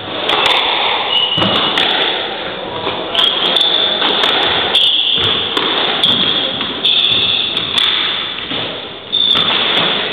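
Squash ball being struck by rackets and smacking off the court walls during a rally: a series of sharp hits, roughly one a second, echoing in the enclosed court.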